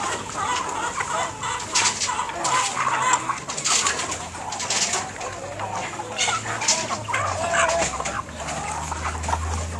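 A flock of hens clucking as they feed, many short overlapping calls, with frequent short clicks and scratches among them.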